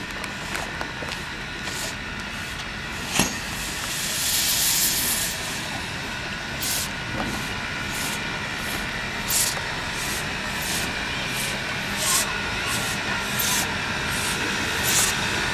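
1946 Đuro Đaković-built narrow-gauge steam locomotive 83-180 working slowly: a burst of steam hiss about four seconds in, then regular exhaust chuffs roughly every second and a half as it draws nearer.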